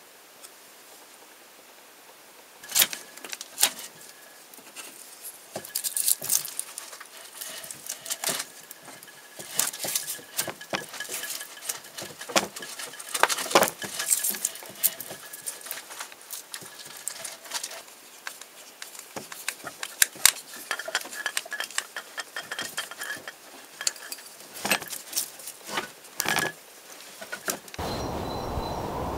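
Irregular clicks, knocks and scrapes as a knife with a hollow plastic handle is handled and fitted onto a wooden shaft. Near the end these give way to a steady outdoor rushing noise.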